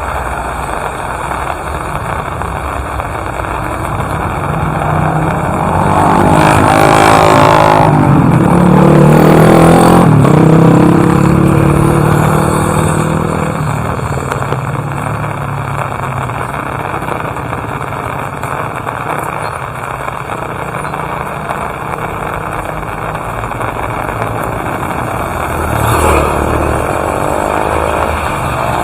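Steady rain with a motor vehicle driving past, loudest a few seconds into the sound, its engine note falling in pitch as it goes by and fades. A second, smaller vehicle pass comes near the end.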